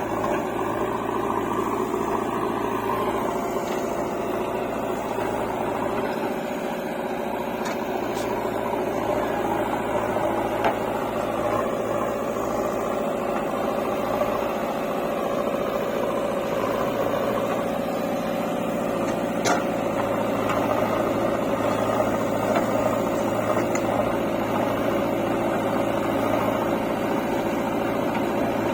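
Diesel engine of a JCB 3DX backhoe loader running steadily as it digs and loads mud, with a few brief sharp knocks from the machine at work.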